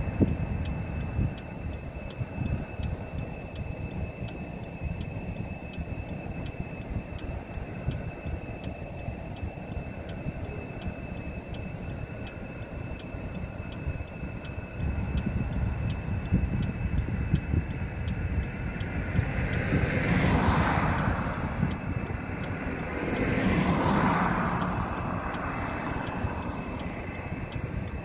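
Car engine idling, its low rumble heard from inside the parked car, with a steady fast ticking of about two or three ticks a second throughout. Near the end two vehicles pass by on the road a few seconds apart, each swelling and fading.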